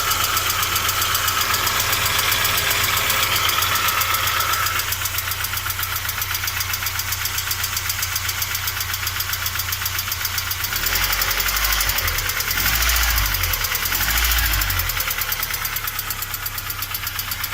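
ZMZ-409 2.7-litre four-cylinder engine running with a fast, bright ticking, which the owner takes for a hydraulic lifter, and a dull, quiet knock that he places around the timing chain. The engine sound swells a couple of times about two-thirds of the way through.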